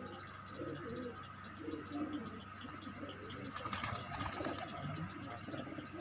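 A flock of Lal Sherazi pigeons cooing, many low coos overlapping throughout. A short rustle comes about halfway through.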